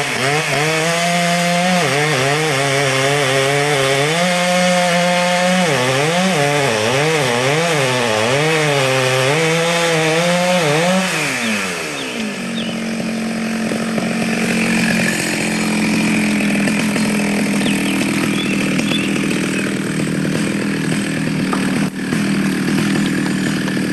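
Two-stroke chainsaw cutting into a tree trunk, its engine revving up and down under load, then winding down to a steady idle about eleven seconds in.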